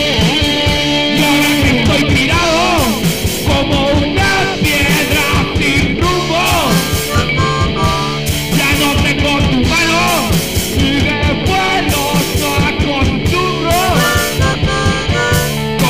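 Punk rock cover song played by a band with guitar and drums, a lead melody bending up and down in pitch over a steady beat.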